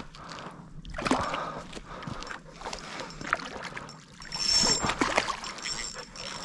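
A hooked trout splashing in shallow water at the shoreline as it is reeled in, in irregular bursts that are loudest a little past the middle.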